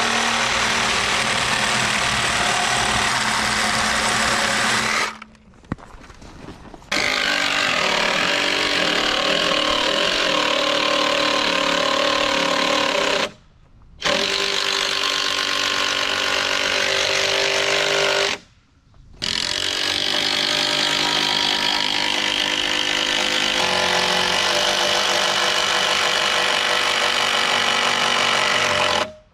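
Loud, steady running of powered machinery, such as an engine or a heavy power tool, broken by three sudden short gaps where it cuts off and starts again with a slightly different pitch.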